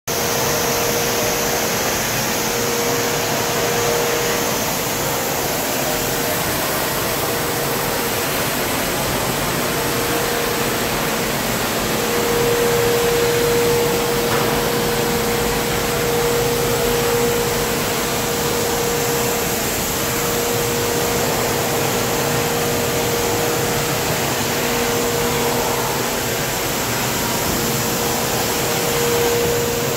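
Empire DCM-200A dust collector's fan running steadily on the blast cabinet: a constant rush of air with a steady mid-pitched hum in it.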